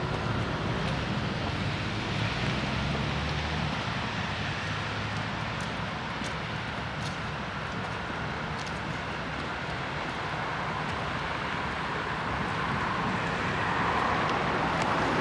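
Diesel shunting locomotive's engine running at low revs, a steady low hum that fades after about four seconds. Wind noise on the microphone rises near the end.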